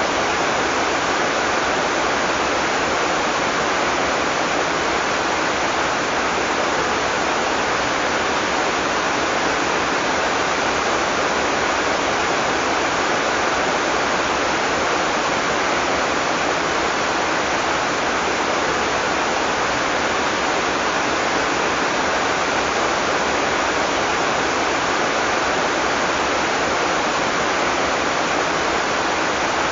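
Heavy tropical rain falling steadily, a dense even hiss with no thunder and no separate drops standing out.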